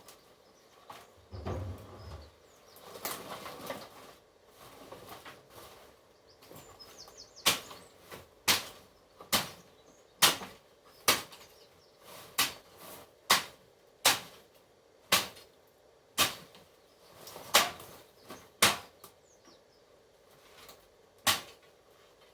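Rustling, then a run of about a dozen sharp knocks roughly one a second, starting about seven seconds in.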